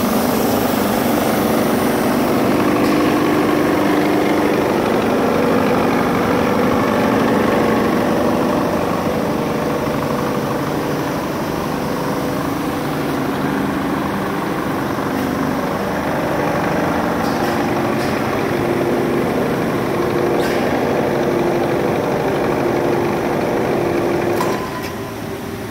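Senden profile sanding machine running under power, its electric motors and dust-extraction fan making a steady mechanical hum with several held tones. Near the end the hum drops sharply as part of the machine is switched off at the control panel, and a lower running sound carries on.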